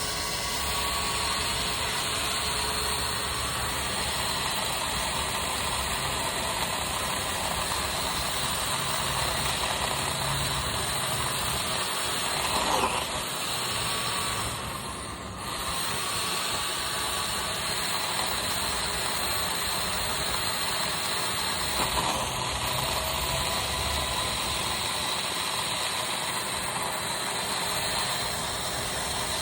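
Chainsaw running steadily, its sound dipping briefly about halfway through.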